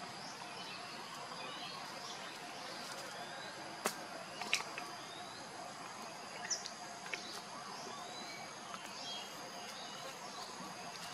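Outdoor insect drone, a steady high-pitched buzz, with short rising chirps repeating every second or so. A few sharp clicks come about four seconds in and again around six to seven seconds.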